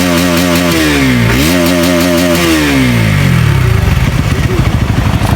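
Bajaj Pulsar NS200's single-cylinder engine revved and held high, dipping once about a second in before it is revved and held again. It then falls back to an idle about three and a half seconds in.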